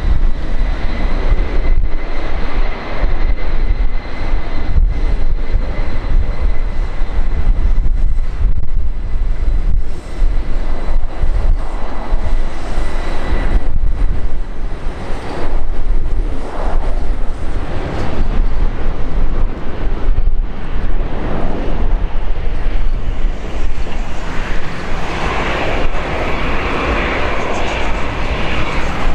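Twin-engine widebody jet freighter at takeoff thrust, running down the runway and lifting off: a loud, steady jet noise with a high whine that fades over the first several seconds, the noise growing brighter near the end as the jet rotates and climbs.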